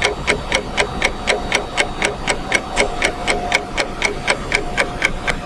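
Steady, even ticking, about four sharp ticks a second, clock-like, over a faint steady tone.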